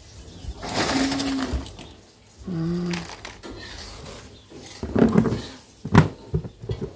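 Crisp puffed crackers rustling and clattering as they are handled, then a plastic storage jar's lid pressed on with a sharp click about six seconds in.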